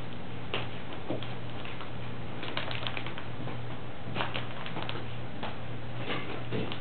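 Pug puppies' paws pattering and rustling on newspaper and a fleece blanket: scattered small taps and crinkles, a few at a time, over a steady low hum.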